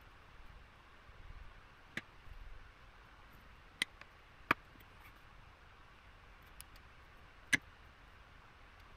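Small hand tools tapping and clicking on a circuit board and workbench during hand-soldering: four sharp, separate clicks a second or two apart, with a few fainter ticks and soft rustling between, over faint room hiss.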